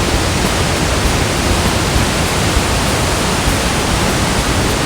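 Water of the O'daru waterfall pouring down, a loud, steady, unbroken rush.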